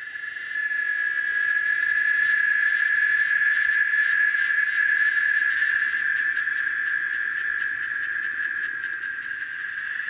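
Cicada song: a steady, unbroken high-pitched buzz that fades in over the first second or two.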